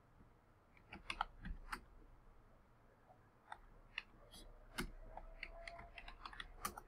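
Faint, irregular keystrokes and clicks of a computer keyboard and mouse as a folder name is typed in.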